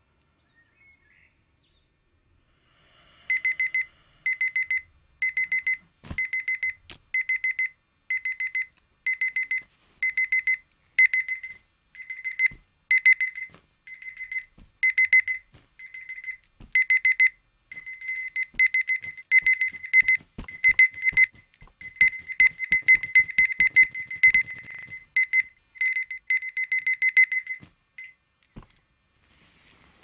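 Dumbbell alarm clock's electronic alarm beeping: pulses of high beeps about twice a second, bunching into quicker runs later on, with faint knocks from the clock being handled and lifted. The beeping starts a few seconds in and stops near the end.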